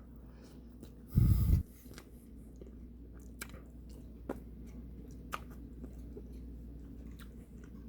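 A person chewing a hot microwaved marshmallow Peeps bunny, with small sticky clicks of the mouth. A short loud thump about a second in.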